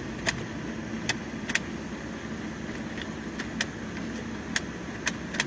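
1.2 16V engine idling steadily, with irregular sharp ticks that come and go like a pulse: a noise the mechanic says normally comes from the water pump.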